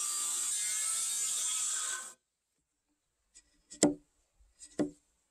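Electric circular saw cutting into the end of a timber beam, stopping abruptly about two seconds in. After a pause come sharp woody knocks as a chisel is driven into the saw kerfs to break out the waste wood: a faint one, then two loud ones about a second apart.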